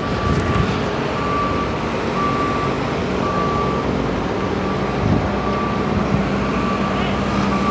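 Boom lift's motion alarm beeping steadily about once a second while the basket moves, over the steady hum of the machine's engine.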